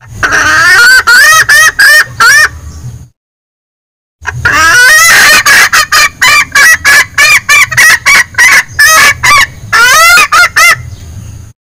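Female junglefowl's cackling call, used as a lure to draw in males: rapid repeated clucking notes in two runs, a short one, then about a second's pause, then a longer run. It is very loud.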